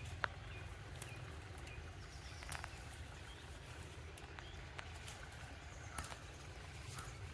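A few sharp clicks and snaps at irregular intervals over a low steady rumble, the loudest just after the start, as of someone moving and picking among plants.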